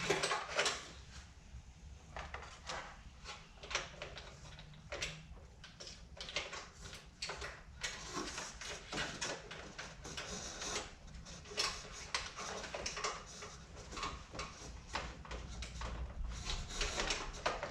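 Horn wiring harness being pulled up and fed through a car's engine bay: irregular rubbing, scraping and light clicks, with no steady rhythm.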